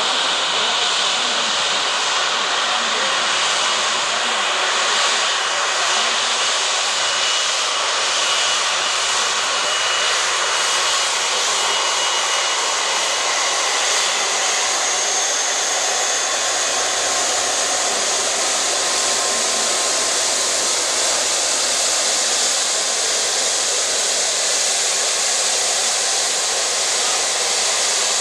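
Airbus A330-243's Rolls-Royce Trent 700 turbofans at taxi power: a steady jet whine and hiss as the airliner taxis past. Faint thin high tones in the whine shift in pitch partway through.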